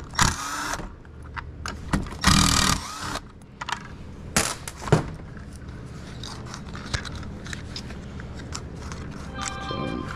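Milwaukee cordless drill-driver with a Torx bit spinning in three short bursts as it backs out the screws of a hedge trimmer's plastic starter cover, followed by light clicks and knocks as the cover is lifted off and handled.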